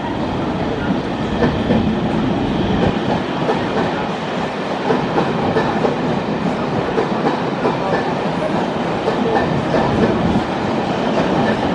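Passenger train running past at speed, its wheels clattering steadily over the rail joints.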